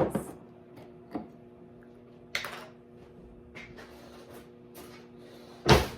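Kitchen handling noises as jalapeño slices are taken out: a knock at the start, a small click about a second in, a short scraping rustle, and a louder clatter shortly before the end, over a faint steady hum.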